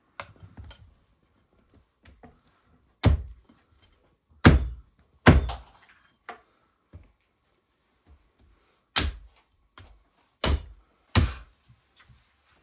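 Meat cleaver chopping lamb ribs on a wooden stump block: about six heavy chops at uneven intervals, the first about three seconds in, with a few lighter taps between them.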